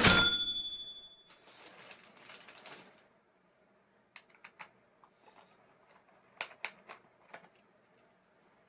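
A sharp metallic clink right at the start that rings on for about a second, from small metal parts being handled at a plastic impact-driver carry case. Faint rustling follows, then a few light clicks at about 4 seconds and again at 6 to 7 seconds.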